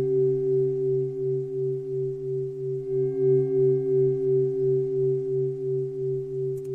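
Sustained meditation drone: a few steady low tones held together like a singing bowl, swelling and fading gently about three times a second.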